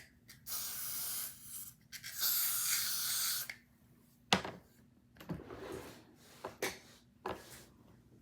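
Aerosol spray can, Got2b glue spray, hissing in two bursts of a second or so each, sprayed onto the wig lace to hold it down. About four seconds in comes a sharp click, then a few lighter taps.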